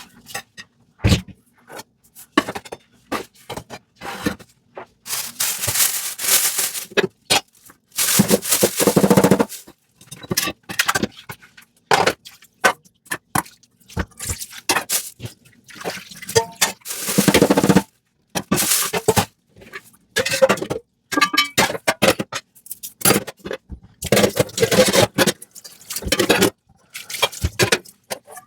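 Dishes being washed by hand at a sink: scraping and scrubbing, clinks of dishes, and short bursts of running water, stopping and starting throughout with a few longer splashes.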